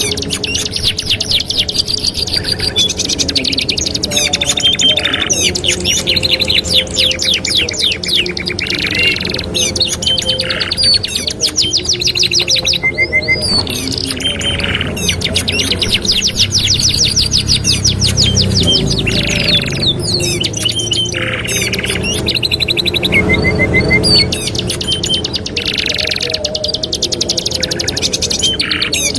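Domestic canaries singing a continuous song of fast rolling trills and short whistled notes, changing phrase every second or two.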